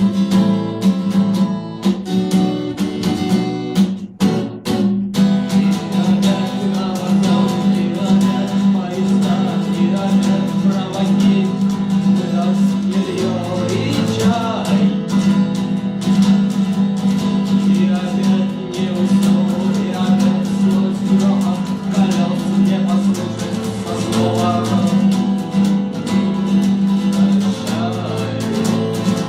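Guitar music, strummed in a steady rhythm, with a short break about four seconds in.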